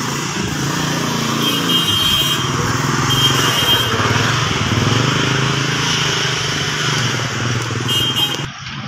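A motor engine running steadily with a low drone, its pitch wavering during the first few seconds and then holding, over a broad hiss.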